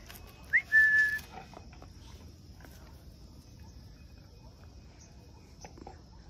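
A person whistles once to the dogs about half a second in: a quick upward flick into a short held note, a dog-calling whistle. After it only a faint steady high hiss and a few soft clicks remain.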